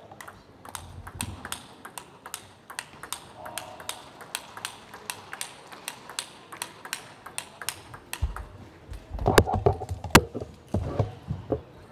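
Table tennis ball in a rally, clicking off the table and the rackets at about four hits a second, with two louder, sharper hits late on.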